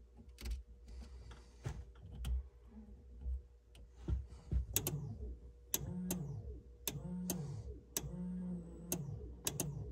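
Clicks and handling noise, then from about four and a half seconds in the OEM-location lift fuel pump runs in several short spurts about a second apart. Each spurt starts with a click and its hum rises then falls in pitch. This shows the lift pump now has power and works.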